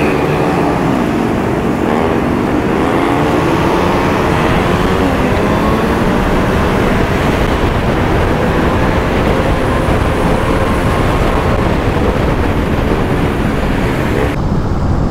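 Motorcycle engine pulling away and cruising in traffic, its pitch rising and falling as it accelerates and changes gear, over a steady low wind rumble on the microphone.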